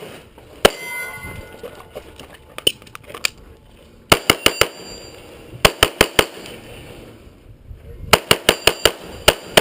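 9mm Smith & Wesson M&P9 Pro pistol shots fired in quick strings during a timed stage: a few single shots, then rapid runs of about four, five and six or seven shots. A metallic ringing follows one of the early shots.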